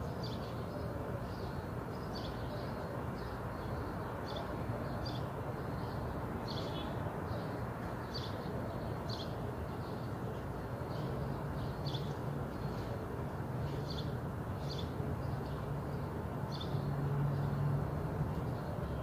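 Outdoor street ambience: a steady background rumble with a small bird chirping in short repeated notes, and a low hum that grows louder in the second half.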